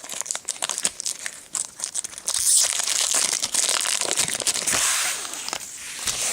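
Magic: The Gathering booster pack's foil wrapper being torn open and crinkled by hand: a dense run of crackles and rustling, loudest through the middle.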